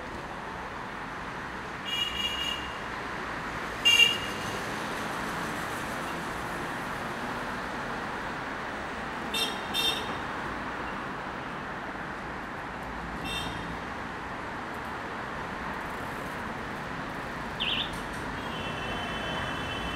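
Steady city street traffic noise with several short, high-pitched vehicle horn beeps, the loudest about four seconds in. Near the end a high steady tone sounds for a second or two.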